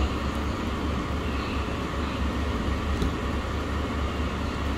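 Steady background noise of a restaurant dining room, a low rumble with an even hiss over it, and a faint click about three seconds in.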